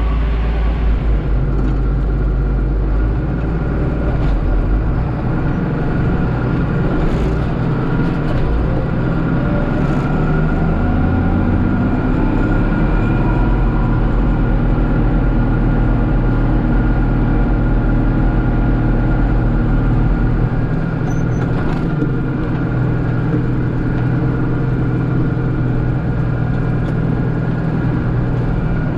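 John Deere 4055 tractor's six-cylinder diesel running steadily under load while pulling a small square baler, with the engine note rising a little about a third of the way in.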